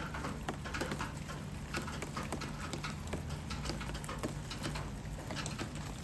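Light rain falling, its drops landing as many small irregular taps, over a low steady hum.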